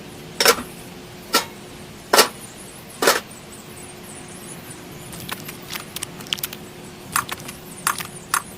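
Sharp taps and clicks of small hard objects handled close up: four distinct knocks about a second apart, then a run of lighter, quicker clicks in the second half.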